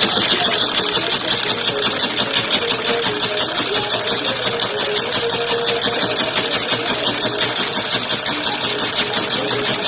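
Slipper-sewing machine running steadily, with a fast, even mechanical clatter of about six beats a second.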